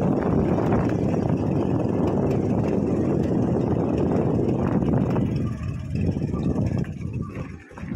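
A moving vehicle's engine and road noise: a dense rumble that eases about five seconds in and dips briefly near the end.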